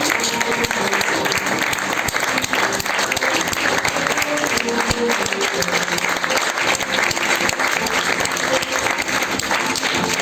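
Theatre audience applauding steadily at a curtain call, with music playing underneath.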